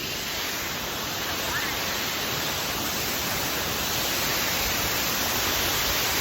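Rushing water of a stream or small waterfall: a steady wash of noise that grows slowly louder.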